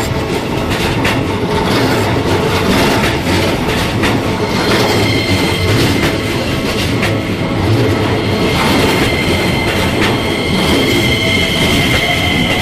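Keikyu Line train passing close by over a level crossing, a loud steady rumble with its wheels clacking over the rail joints. A steady high-pitched squeal comes in about five seconds in and grows stronger near ten seconds.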